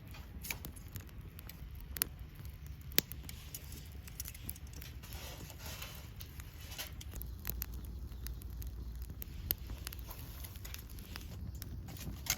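Wood campfire crackling, with irregular sharp pops, the strongest about two and three seconds in.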